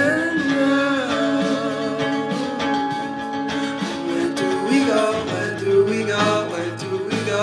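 Background song: guitar with a singing voice.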